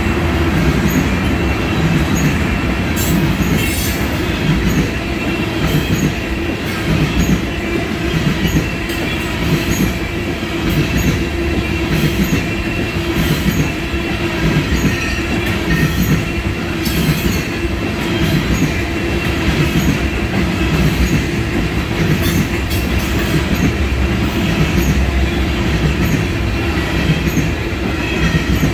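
Tank cars of an oil train rolling past: a steady rumble of steel wheels on rail, with regular clicks as the wheels cross rail joints.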